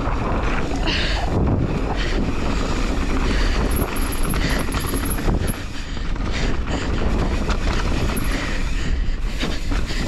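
Mountain bike riding fast down a dirt trail: wind buffeting the camera microphone over the rumble of tyres on dirt and a steady rattle of the bike over bumps.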